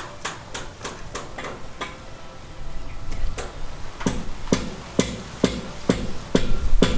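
Hammer blows: light, irregular taps at first, then from about four seconds in steady, strong strikes about two a second.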